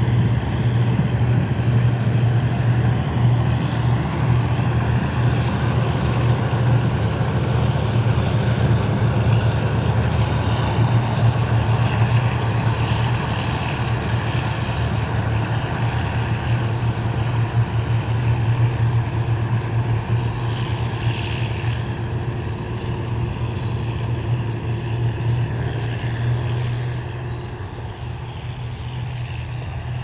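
Passenger train hauled by GE diesel-electric locomotives running along the track and drawing away: a steady low engine drone with rolling noise over it, dropping in level near the end.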